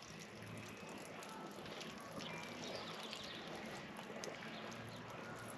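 Faint outdoor background noise with a few faint bird chirps.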